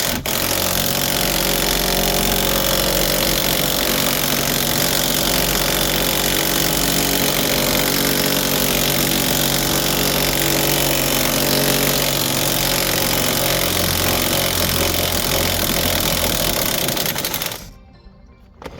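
Impact wrench hammering steadily as it undoes a seized wheel bearing hub bolt, then stopping abruptly near the end as the bolt comes free.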